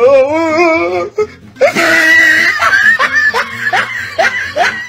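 People laughing and yelling as a man jumps into a rock pool, with a splash about a second and a half in.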